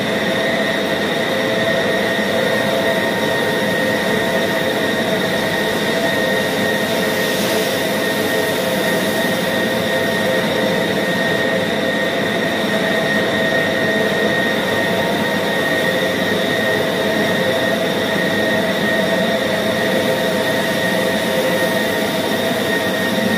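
Electric meat band saw running steadily as its blade cuts through blocks of pork, a constant mechanical whine that holds level throughout.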